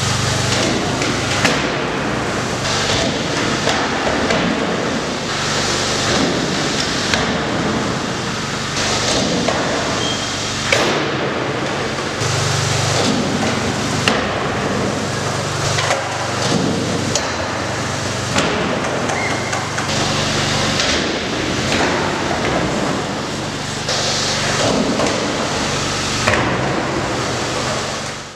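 Skateboard wheels rolling on a concrete floor and over a quarter pipe and bank ramp, over a steady low hum. Sharp clacks of the board popping, hitting the ramp and landing come every few seconds.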